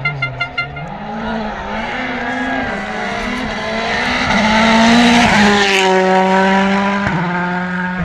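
Rally car engine revving hard and changing pitch with gear changes as the car approaches and passes, loudest about five seconds in, then a steady held note.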